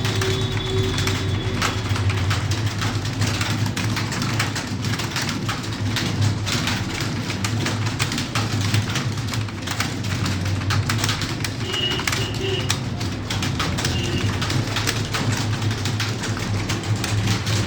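Fast typing on a computer keyboard, a continuous stream of key clicks, over a steady low hum.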